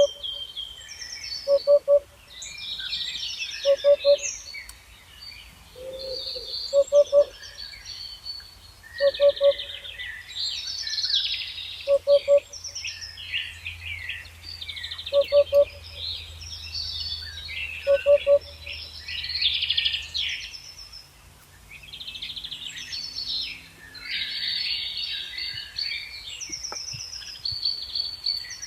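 A dense dawn-chorus-style mix of many songbirds singing at once, with trills and quick chirps overlapping throughout. Over it, for the first two-thirds, a lower, double-noted call repeats every two to three seconds and is the loudest sound each time.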